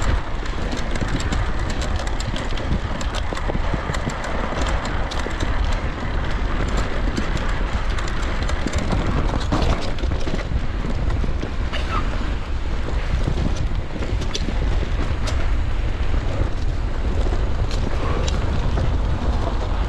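Wind buffeting the microphone while riding an electric mountain bike, with steady tyre noise and many small ticks and rattles from the bike over the trail.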